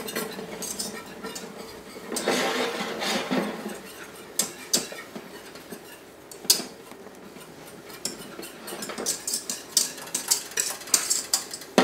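Wire whisk scraping and clinking against the sides of a stainless steel saucepan as pastry cream is whisked over heat, in uneven spells with scattered sharper taps and a quick run of clicks near the end.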